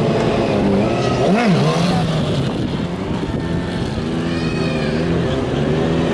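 Sport motorcycle engine running under throttle during a wheelie. Its pitch rises and drops back in one quick blip about a second and a half in, then holds fairly steady.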